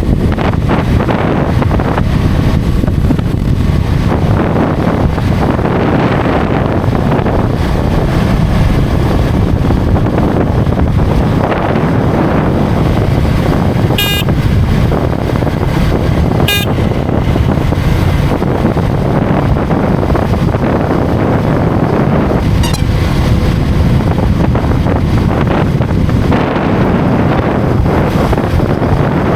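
Motorcycle riding at highway speed: steady heavy wind rush on the microphone over the engine and road noise. Two short horn beeps come about halfway through, a couple of seconds apart.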